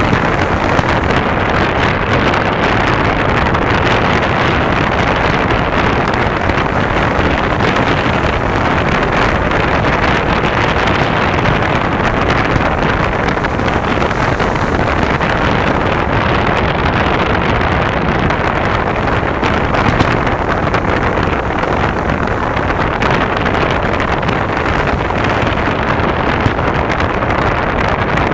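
Steady wind rushing on the microphone, a loud, even noise that masks almost everything else, with a few faint knocks standing out.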